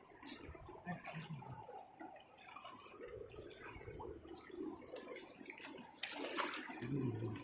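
River water splashing and dripping in irregular bursts as a fishing net is worked in the shallows, with a sharper, louder splash about six seconds in.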